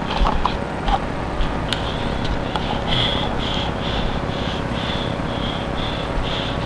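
Steady low rumble of a handheld camera being carried, with a few handling clicks early on. From about three seconds in, a high-pitched pulse repeats about twice a second.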